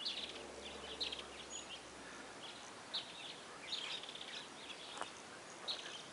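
Small birds chirping in short, repeated high calls over a quiet outdoor background, with one sharp click about five seconds in.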